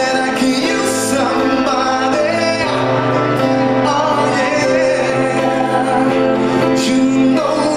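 Live band music with a male voice singing lead over bowed cello, keyboard and acoustic guitar.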